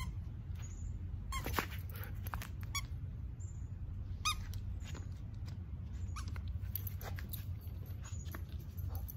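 Squeaker in a plush dog toy squeezed by hand, giving a few short, high squeaks spread over the first half, over a steady low background rumble.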